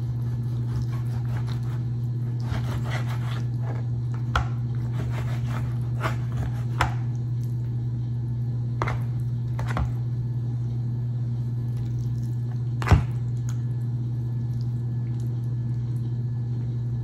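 A knife slicing raw chicken breasts, with wet squishing and scattered knocks of the blade on the board; the loudest knock comes about 13 seconds in. A steady low hum runs underneath.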